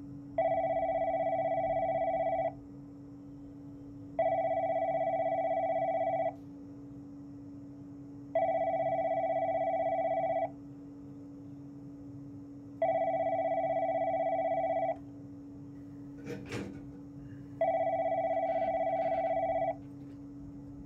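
Electronic telephone ringing: five warbling rings, each about two seconds long, with about two seconds of pause between them, over a steady low hum. A brief knock comes just before the last ring.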